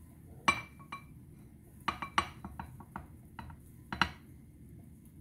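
Glass bowls clinking and knocking together as chicken pieces are dredged in cornstarch by hand: about a dozen short, sharp clinks, the loudest about half a second in and about four seconds in.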